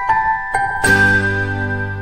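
Background music of bell-like struck notes that ring on, with a fuller chord and a low bass note coming in a little under a second in.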